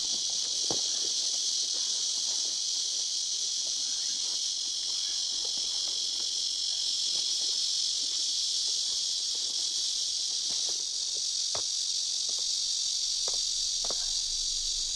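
Steady insect chorus, a continuous high-pitched chirring with no breaks, with a few faint scattered ticks beneath it.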